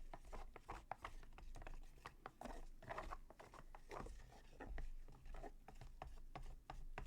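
Irregular scraping and tapping of a stick stirring thin tinted plaster in a mixing container as paint is worked into it, with a few brief scratchy strokes about two and a half, four and five seconds in.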